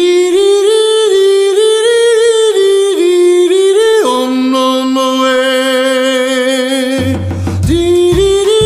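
Background music: a solo voice sings a melody that steps between notes and holds one long note midway, and a low pulsing beat comes in near the end.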